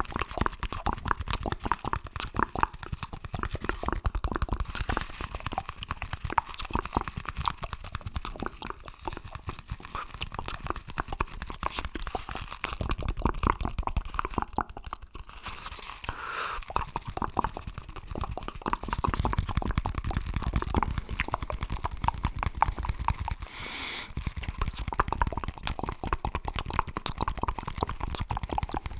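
ASMR mouth sounds mixed with a paper roll being handled, heard as a dense, continuous run of small crackles and clicks.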